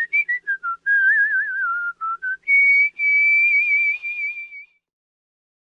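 A person whistling a tune: a quick run of short notes, a wavering phrase, then a long, slightly warbling higher note held for about two seconds before it stops.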